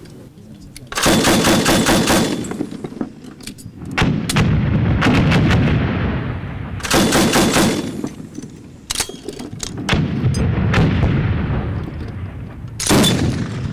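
Automatic gunfire: several bursts of rapid shots, each trailing off into a lingering echo, with single shots scattered between the bursts.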